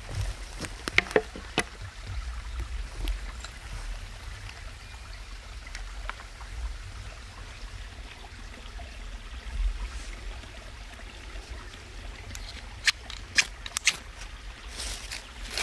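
Boots stepping over dry branches and leaves on a forest floor, with several sharp twig snaps in the first couple of seconds, then quiet rustling. Near the end come three sharp clicks and a short rasping scrape from a ferrocerium fire-steel rod being struck over a small pile of kindling.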